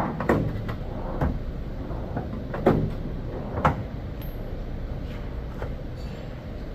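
Metal hand tools clanking: a handful of scattered knocks and clicks, the loudest two about three and four seconds in, over a steady low rumble.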